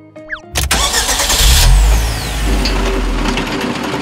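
A heavy machine's engine, most likely the excavator's, starts suddenly about half a second in with a loud deep rumble. The rumble eases after a couple of seconds and the engine keeps running steadily. A few short falling cartoon tones come just before it starts.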